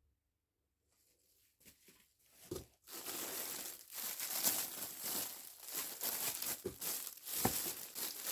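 Plastic packaging crinkling and rustling as parts of a metal detector are unwrapped. It starts with a few faint clicks and becomes a continuous crackly rustle about three seconds in.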